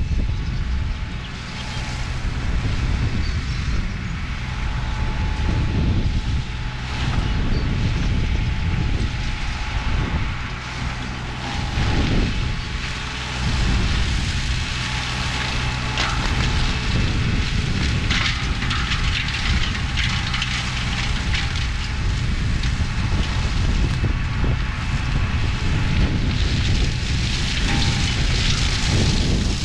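Green Climber LV600 remote-controlled tracked flail mower running steadily: a constant engine drone with a few steady whining tones above it.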